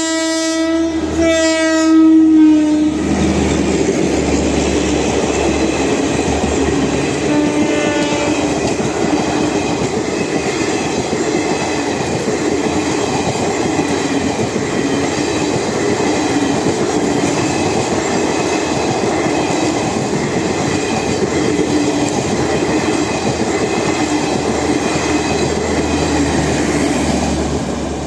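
Indian Railways WAP-4 electric locomotive's air horn sounding, with a short break about a second in, and stopping about 3 s in. The passenger train's coaches then rumble past with wheel clickety-clack, with a brief faint horn-like note around 8 s in, and the sound falls away near the end as the train clears.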